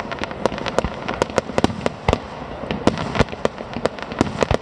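Fireworks display going off: a rapid, irregular string of bangs, several a second, over continuous crackling.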